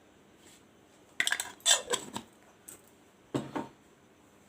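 Metal cookware and utensils clinking and scraping in a few short clatters: a cluster just over a second in and another after about three seconds.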